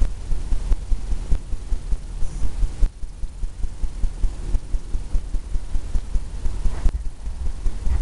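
Low, uneven rumble with quick irregular pulses, several a second, and no clear tone.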